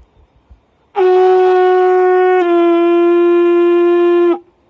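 A small blowing horn sounding one long, strong, high note for about three seconds. About halfway through the pitch drops slightly as a hand goes into the bell to bring it down and mute it. The note cuts off sharply and a faint echo trails after it.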